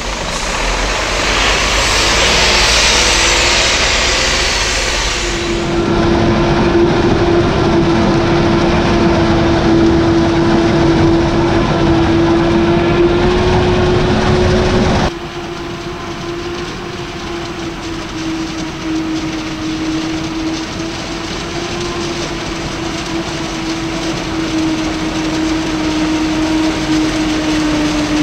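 Heavy diesel farm machinery running steadily under load, with a steady droning hum. The sound changes suddenly about five seconds in and again about halfway through, as it switches between machines or distances.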